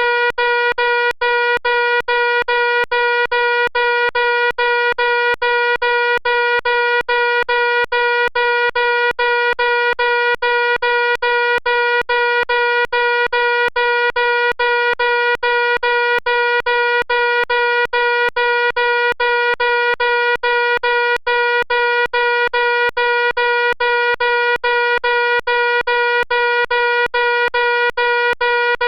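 Fire alarm sounding continuously: a loud, buzzing electronic tone, broken by very short regular gaps a few times a second.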